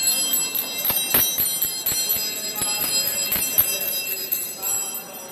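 Bells ringing rapidly, with many overlapping strikes and high, sustained ringing tones, easing off a little near the end.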